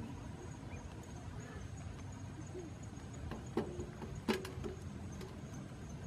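Two quail feeding on bare ground, making a few short, soft sounds about three and a half to five seconds in, over a faint steady outdoor background.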